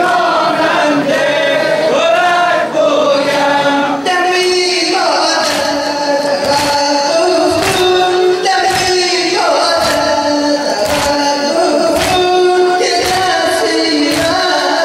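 Men singing a Shia Muharram lament (nauha) as a group, led by reciters on microphones. From about four seconds in it is joined by sina zani: hands slapping on chests in time with the chant, about two strokes a second.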